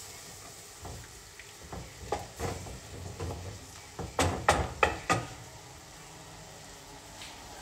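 A utensil stirring bacon and cream in a frying pan on the stove, knocking against the pan, over a faint steady sizzle. Softer knocks come early, then four sharper knocks about four to five seconds in.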